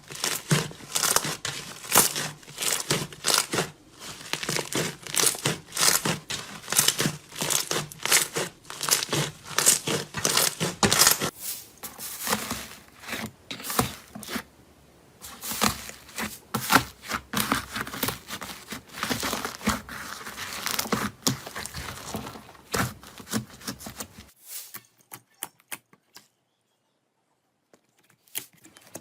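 Slime being squeezed and worked by hand, a dense run of sticky crackling and popping that stops suddenly near the end.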